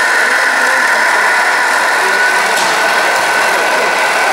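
Electronic sound unit of a radio-controlled scale semi truck playing a steady diesel engine idle through its small speaker.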